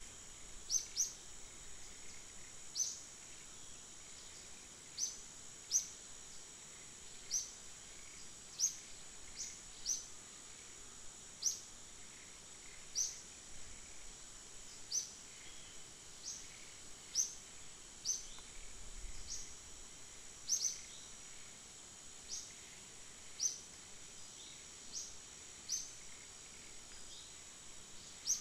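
Forest ambience: a steady high insect drone, with short high chirps repeating about once a second.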